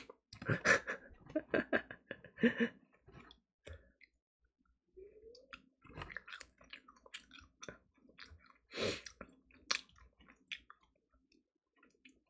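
Man chewing chicken with his mouth close to the microphone: wet chewing with mouth clicks and smacks, and a short hum about five seconds in.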